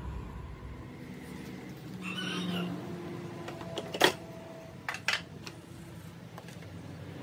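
Handling noise as the plastic outer cover of a Yamaha Grand Filano scooter's belt case is pulled off by hand: a sharp click about four seconds in, then two lighter clicks about a second later.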